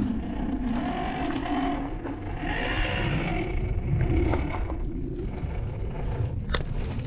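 MN78 RC crawler's electric motor and gearbox whining as the truck crawls over rocks, rising to a higher whine a few seconds in, with tyres scraping on stone and a few sharp clicks near the end.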